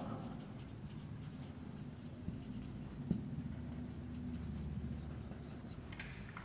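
Marker pen writing on a whiteboard: a run of short, faint scratchy strokes as letters are written out.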